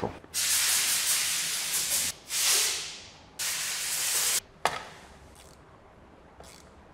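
Three bursts of hissing spray, the first nearly two seconds long and the next two about a second each, followed by one sharp metallic click; faint small clicks of handling after it.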